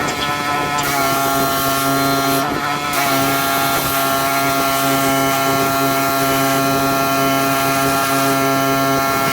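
Pressure washer engine running at a steady speed, an even droning hum, briefly disturbed right at the start and again about two and a half seconds in.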